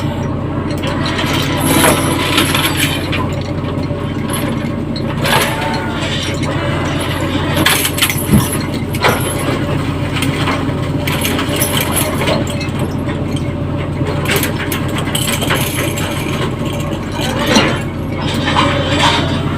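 A fishing boat's engine running with a steady low drone, with a few scattered knocks and clanks over it.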